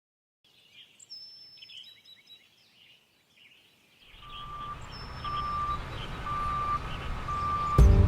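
Birds chirping, then a machine's engine noise growing louder with a reversing beeper sounding about once a second. Music starts near the end.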